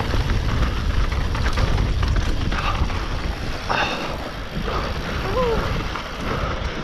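Mountain bike descending a chunky, rooty trail: wind buffeting the microphone with a steady low rumble, and the bike clattering over the rocks and roots. A short squeak about five seconds in.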